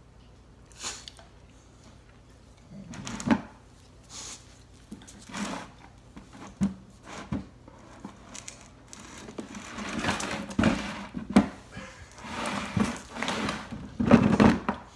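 English bulldog nosing into a clear plastic storage bin after a rope toy: irregular knocks and scrapes against the plastic, sparse at first, then busier and louder in the second half, loudest near the end as the toy comes up out of the bin.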